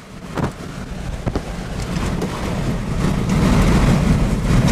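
Tornado winds buffeting the microphone and vehicle as a deep, noisy rumble that builds in loudness over the first few seconds. A few sharp knocks come early on.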